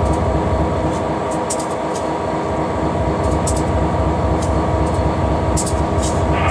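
Diesel locomotive's engine running steadily, heard from inside the cab: a loud even drone with a steady hum over it and a few light clicks scattered through.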